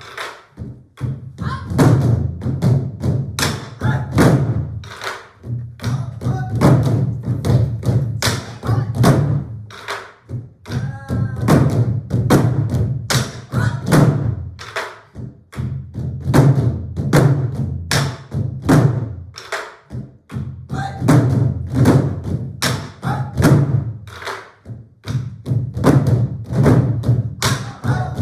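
A large ensemble of Korean buk barrel drums played together in a steady, driving rhythm of dense, heavy strokes.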